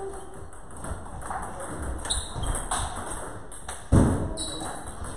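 Celluloid-type table tennis ball clicking off paddles and the table in a rally, a scatter of short sharp taps. A louder thud about four seconds in.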